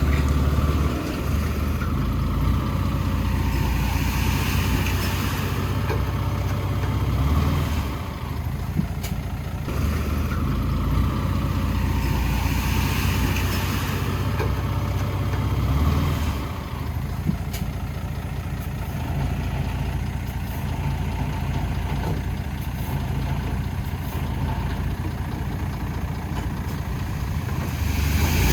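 Heavy diesel engine of earthmoving machinery working under load. It revs up and eases off in cycles of several seconds, with the loudest dips about eight seconds in and again about sixteen seconds in.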